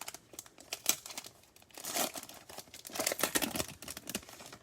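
Foil wrapper of a trading-card pack crinkling and tearing as it is handled and opened: irregular crackling, loudest about two seconds in and again a second later.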